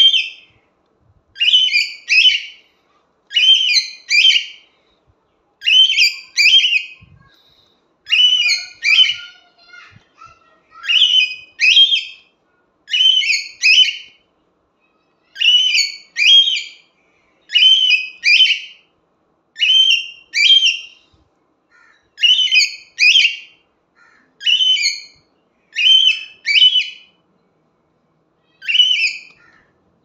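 Whiteface cockatiel calling loudly, repeating high two-note calls about once every two seconds, with a short pause near the end.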